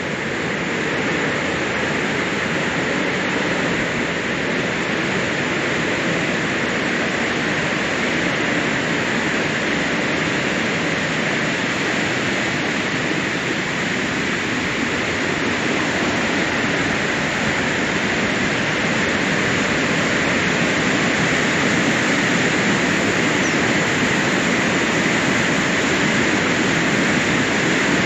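Monsoon floodwater rushing over and out of a check dam: a loud, steady roar of falling water, growing a little louder in the second half.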